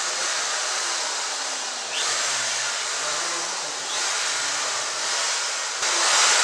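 A steady, loud rushing hiss, like air from a motor-driven blower, with sudden steps up in level about two, four and six seconds in.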